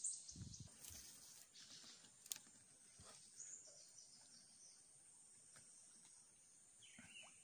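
Near silence: faint outdoor ambience with high-pitched insect chirping in rapid pulse trains, and one sharp click about two seconds in.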